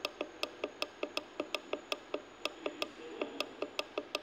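Quick, steady clicking of small push buttons on an Autonics CN series controller's front panel, about five presses a second, as it is stepped through its input settings. A faint steady high whine lies under the clicks.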